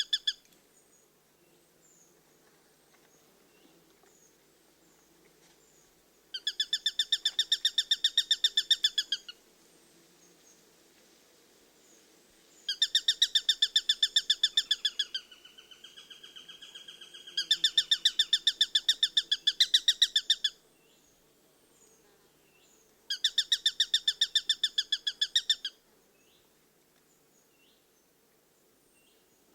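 Eurasian sparrowhawk giving its rapid chattering kek-kek-kek call: four loud bursts of quick, evenly repeated notes about three seconds each, the end of another right at the start, and a softer, lower chatter between two of them. Faint short chirps of small birds sound in the gaps.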